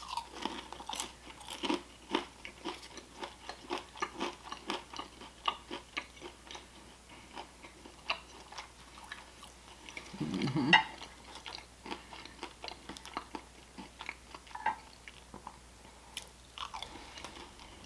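Close-up chewing and crunching of a wonton stuffed with crab meat and cream cheese, an irregular run of small crackles and mouth sounds, with a brief hum-like voice sound about ten seconds in.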